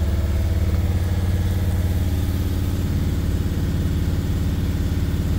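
Mercedes T1N Sprinter's diesel engine running steadily at a raised idle of about 2000 RPM while it warms up after an injector leak repair.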